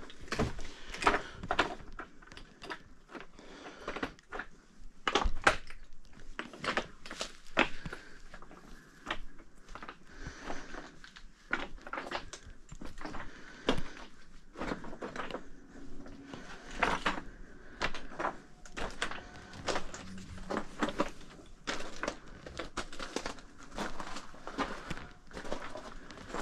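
A hiker's footsteps on rocky ground: an uneven run of sharp steps and scuffs, about one to two a second.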